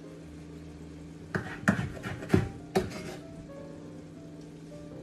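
Four sharp knocks in quick succession in the kitchen, as of utensils or hands against cookware at the stove, between about one and three seconds in, over a steady low hum.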